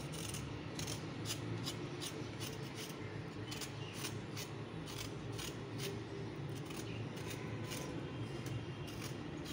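Kitchen knife scraping the skin off a tinda (Indian round gourd), one short scrape with each peeling stroke, about two to three strokes a second.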